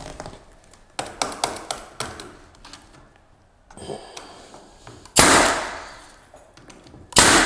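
Pneumatic brad nailer driving brad nails into a wooden jamb extension: two loud sharp shots, about five seconds in and again near the end, each with a noisy tail that dies away over about a second. A few lighter clicks and taps come about one to two seconds in.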